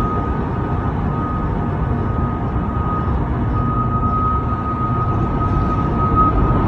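Heavy construction machine running steadily: a low engine rumble with a thin, steady high whine over it.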